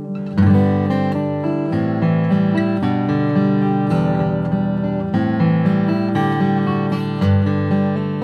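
Dreadnought acoustic guitar with an Adirondack spruce top and red narra back and sides, played fingerstyle: a picked melody over ringing bass notes, with a loud attack about half a second in.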